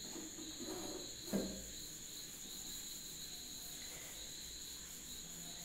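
Faint, steady high-pitched chirring in a quiet room, with a few soft, brief sounds in the first second and a half.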